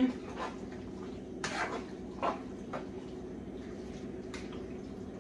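Spoon stirring beef and noodles in a cooking pot, knocking and scraping against the pot about eight times at uneven intervals, over a steady low hum.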